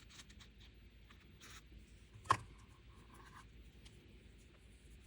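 Faint scratching and light ticks of a small hand tool working adhesive around a metal clay bezel base on a bench, with one sharper click a little over two seconds in.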